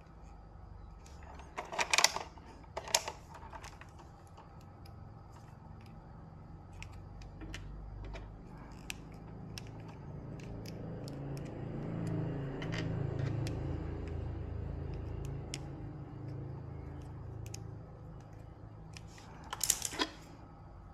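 Scattered small clicks, with a louder clatter about two and three seconds in and again near the end, over a low hum that swells in the middle.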